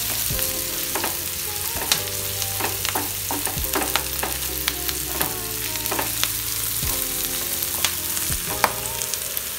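Chopped onions, green chilies and curry leaves sizzling in hot oil in a non-stick frying pan, stirred with a wooden spatula that scrapes and taps irregularly against the pan.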